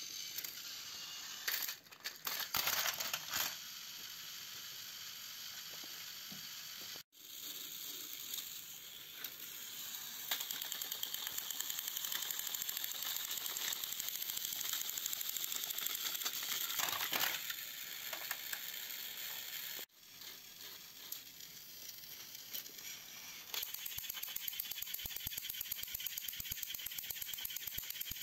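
Battery-powered Plarail-style toy train engines running on plastic track: a steady high motor whir with gear clatter, the engines pushing against each other nose to nose. Near the end a rapid, even clicking.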